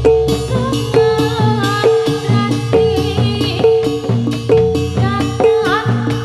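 Javanese gamelan music accompanying a jathilan dance: a bright metal note struck about once a second over busy drumming and rattles, with a wavering melody line above.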